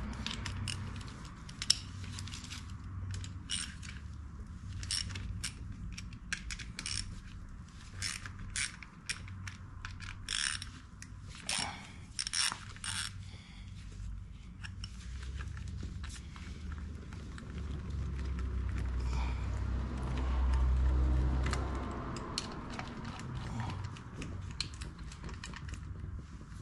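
Socket ratchet clicking in short runs as the 8 mm oil filter cover bolts of a Honda CRF300L Rally are backed out. A low rumble swells and fades in the second half.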